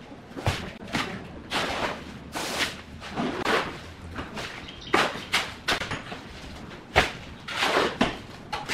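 Shovel scraping into a pile of wet concrete mix and dropping shovelfuls onto a countertop form: a series of rough, irregular scrapes with a few sharp knocks.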